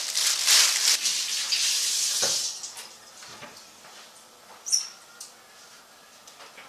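Plastic oven-roasting bag crinkling and rustling as beef is pushed into it, for about two and a half seconds. Then it goes much quieter, with a single knock and a brief high squeak.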